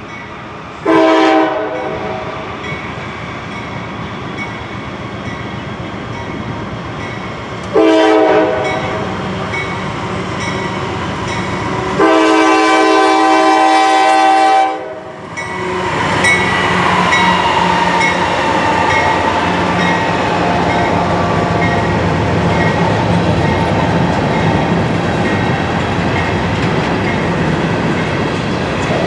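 Locomotive air horn on a Norfolk Southern GE AC44C6M sounding two short blasts and then one long blast. The train then passes with a steady rumble of wheels clicking over the rail joints, and a whine that falls in pitch as the locomotive goes by.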